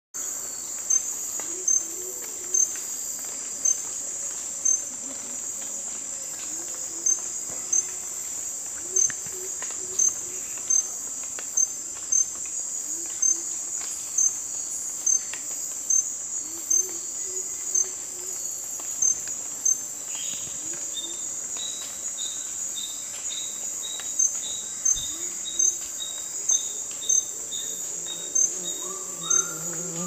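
Rainforest insect chorus, cricket-like: a steady high buzz with a louder chirp about once a second. From about two-thirds of the way in, a second, lower short note repeats about twice a second. Music comes in at the very end.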